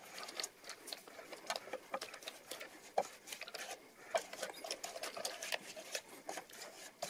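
A spatula spreading thick cake batter over baking paper in a springform pan: many short, irregular scrapes and clicks of the blade against the batter and the pan.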